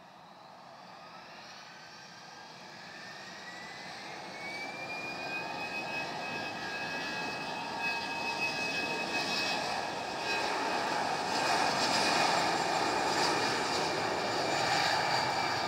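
Twin jet engines of an Airbus A319 spooling up on the runway: a whine rises in pitch over the first few seconds, then holds steady with a rushing roar. The sound grows steadily louder as the airliner starts its takeoff roll.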